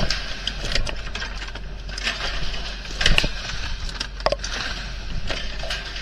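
Irregular knocks and clanks from a lever-operated ikejime machine as yellowtail are clamped and its two blades bleed them and cut the nerve, with the sharpest knocks at the very start and about three seconds in. A steady low hum runs underneath.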